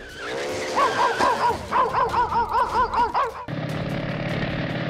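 An animal's high yelps, about eight short calls in quick succession, each rising and falling in pitch. A little over three seconds in they stop, and a steady vehicle engine hum takes over.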